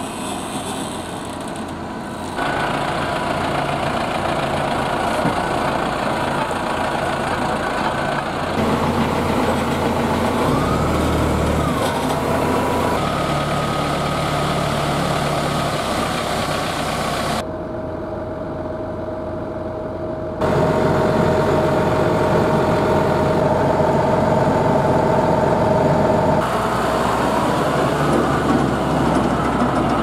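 Tractor engines running as tractors haul tipping trailers, heard across several shots that cut abruptly from one to the next. Some stretches carry a steady high whine.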